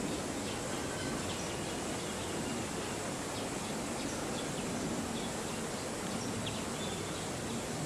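Steady outdoor background noise, with a few faint, short, high chirps scattered through it.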